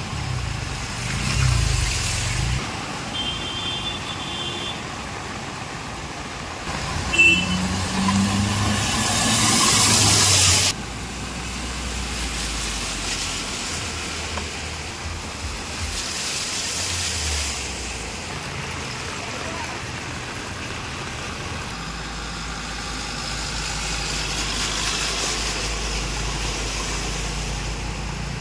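Traffic moving through a flooded road in the rain, with vehicle engines and the rush and splash of tyres through standing water over a steady wash of water noise. A horn beeps briefly a few seconds in and again about seven seconds in. A loud rushing spray builds around eight seconds in and cuts off suddenly a couple of seconds later.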